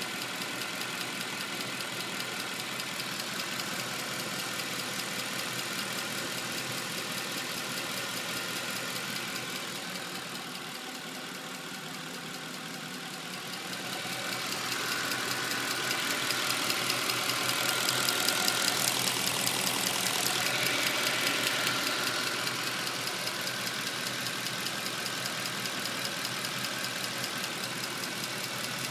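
Mercedes-Benz C63 AMG's 6.2-litre V8 idling with a fast, even ticking that the owner takes for a sign that something is wrong. The sound grows louder and brighter about halfway through, then settles back.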